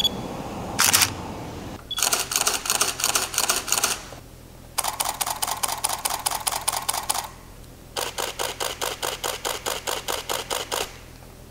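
Mechanical shutters and mirrors of DSLR cameras (Pentax 645Z, Canon EOS 5DS, Nikon D810) firing in continuous-shooting bursts. A brief click about a second in, then three separate runs of rapid, evenly spaced clacks, each two to three seconds long, with short pauses between them.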